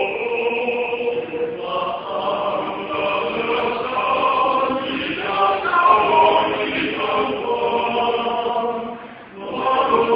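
Small male vocal ensemble singing a cappella in sustained harmony, the chords shifting every second or so, with a brief break about nine seconds in before the next phrase.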